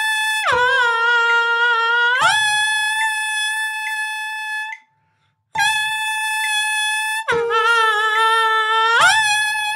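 An alto saxophone mouthpiece, with reed and ligature and no horn, sounds its concert A and is bent down with the lip and throat to a pitch nearly an octave lower, held, then lifted back up to the A. After a short breath near the middle, the same bend down and back up comes again. It is a pitch-bending exercise for control of tone and intonation.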